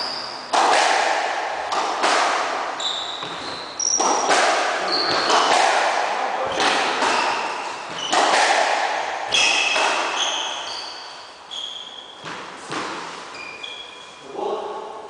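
A squash ball being struck and hitting the court walls: sharp cracks about every one to two seconds, each ringing out in the court's echo, mixed with short high squeaks of shoes on the wooden floor. The hits thin out near the end.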